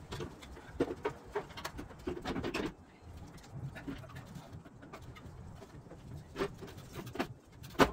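Scattered clicks, knocks and rattles of a steel bumper being handled and fitted against a vehicle's front end, with a few short low sounds between them and one sharp click near the end.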